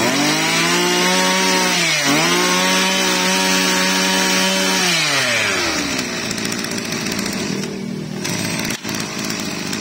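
Maruyama 24cc two-stroke brush cutter engine running at high throttle, with a brief dip in revs about two seconds in. About five seconds in the revs fall back as the throttle is released, and it runs on at a low idle.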